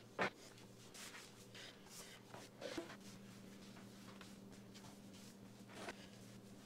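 Faint shuffling and rubbing as someone moves across a hardwood floor with a pole-mounted pad applicator spreading polyurethane. A sharp click just after the start is the loudest sound, and a low steady hum runs underneath.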